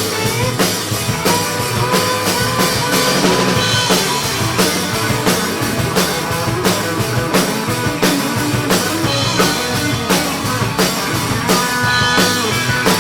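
Live rock band playing a song's instrumental intro, a drum kit keeping a steady beat under the other instruments.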